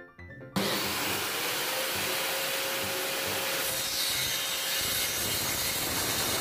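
Circular saw cutting along a wooden batten: a loud, steady cutting noise that starts abruptly about half a second in.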